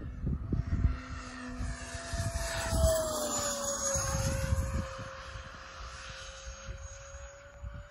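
Freewing MiG-21 RC jet's 80 mm electric ducted fan, driven by an E-flite 2000kv inrunner, whining as it makes a fast pass. It is loudest about three seconds in, where its pitch drops as it goes by.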